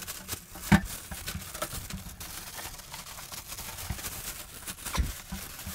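Plastic wrapping film crinkling and rustling as it is pulled off a welder by hand, with a couple of dull knocks, one about a second in and one near the end.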